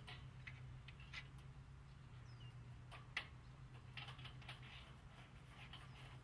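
Faint, irregular clicks and taps from hands working on solar panel mounting hardware, one sharper click about three seconds in, over a low steady hum.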